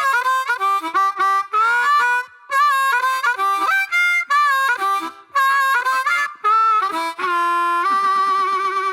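Harmonica playing a quick run of short notes and chords, then holding one long, slightly wavering chord for the last couple of seconds.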